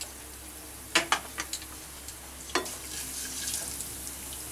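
Black cumin (nigella) seeds sizzling in hot mustard oil in a kadai as they are tempered, with a few sharp clicks and scrapes from a wooden spatula stirring them. The sizzle grows a little stronger in the second half.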